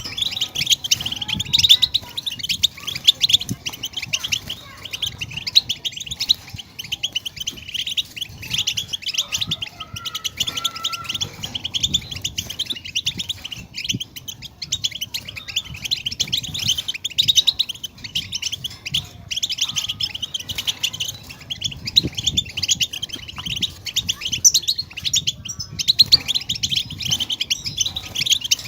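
European goldfinch song: a continuous, fast twittering chatter of high chirps and trills.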